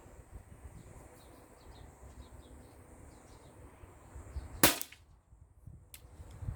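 A Steyr LG110 air rifle fires a single shot, a sharp crack about two-thirds of the way in, over a low rumble of wind on the microphone. A fainter click follows about a second later.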